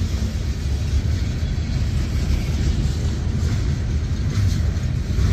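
Freight cars of a mixed freight train rolling past close by: a steady, loud low rumble of steel wheels on the rails.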